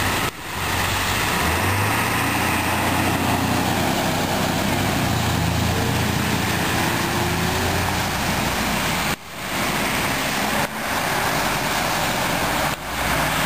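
Road traffic driving slowly through a flooded street: vehicle engines running and tyres swishing and spraying through standing water, with a low engine hum strongest in the first half. The sound drops out briefly and recovers about four times.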